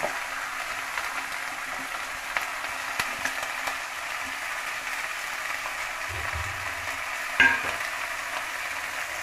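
Pumpkin stems, potato and eggplant just tipped into hot oil in a metal kadai, sizzling with a steady frying hiss. A few light clicks, and one sharp knock about seven seconds in.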